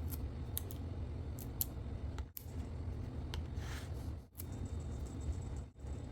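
A few light, sharp clicks and a short scrape over a low steady hum; the sound drops out briefly three times.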